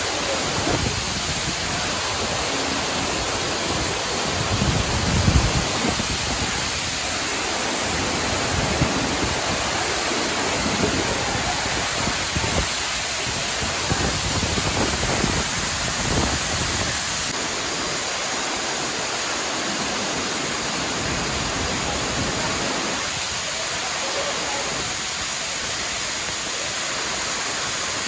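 Varone waterfall pouring into its enclosed rock gorge: a steady, dense rush of falling water, with a brief low rumble about five seconds in.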